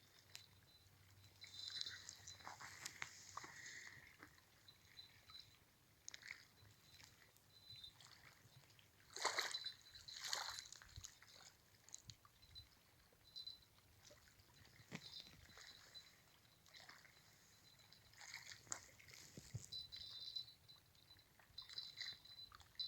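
Faint water splashing and sloshing in short, scattered bursts, the clearest about nine to ten seconds in.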